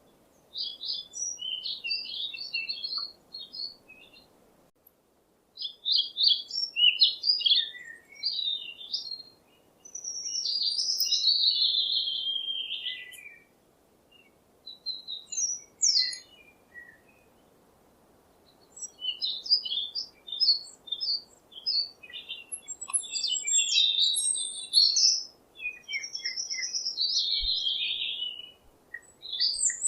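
Bird singing and chirping: bursts of quick, high twittering phrases separated by short pauses, with one longer phrase that slides down in pitch about a third of the way in.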